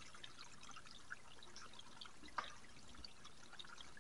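Faint trickle of spring water running over rocks into shallow pools, with many small scattered ticks of water and one louder click a little past halfway.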